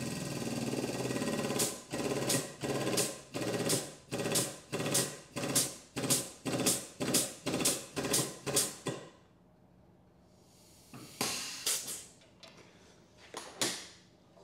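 Hydraulic pump of a body-repair pulling tower running, first steadily and then in short pulses, about two a second, with two more short bursts near the end. The pulses are the ram being inched to pull a crash-bent chassis leg back into line.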